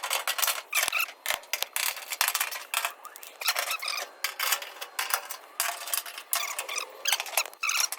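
Short, repeated squeaks and clicks of screws and sheet metal as the back panel is taken off a clothes dryer.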